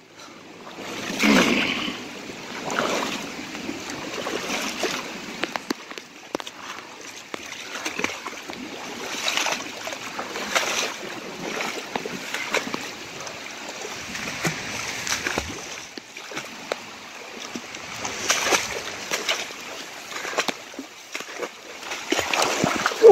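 A person wading through waist-deep floodwater, with a slosh and splash at each stride every second or two, over a steady rush of moving water.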